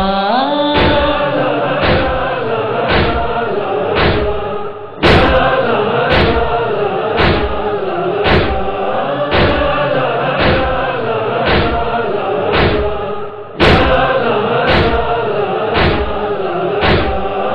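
Noha: voices chanting a mournful melody over a steady beat of heavy thumps about once a second, the rhythm of matam (chest-beating). A louder beat comes after a brief dip about five seconds in, and again about thirteen seconds in.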